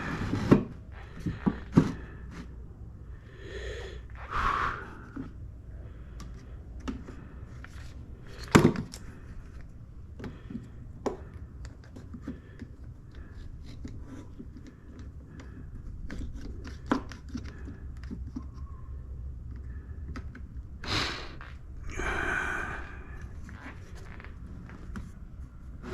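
Scattered knocks and clunks of tools and wood pieces being handled on a workbench, with a few heavy breaths.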